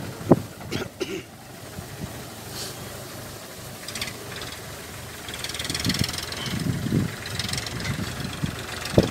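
Diesel tractor engine running as it tows a loaded sugarcane trolley away. A single sharp knock comes just after the start.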